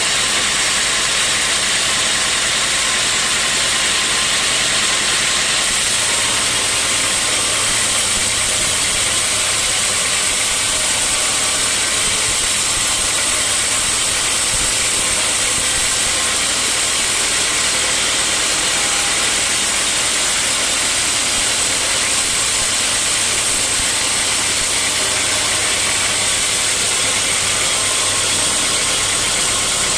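Sawmill machinery running steadily: a continuous loud hiss and a high, even whine over a low hum, which shifts slightly about five seconds in.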